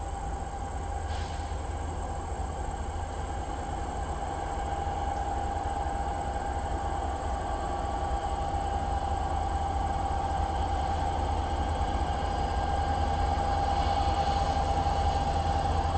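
Diesel locomotives approaching: a low engine rumble with a steady whine that grows gradually louder as the train draws nearer.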